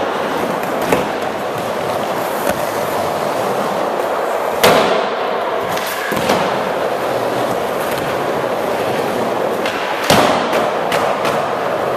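Skateboard wheels rolling on wooden ramps, with sharp clacks and slaps of the board hitting the ramp, the loudest about five and ten seconds in, echoing briefly in the hall.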